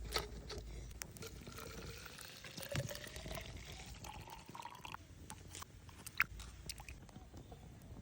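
Liquid pouring into a container, its tone rising steadily in pitch over about four seconds as the vessel fills, with scattered light clicks and knocks.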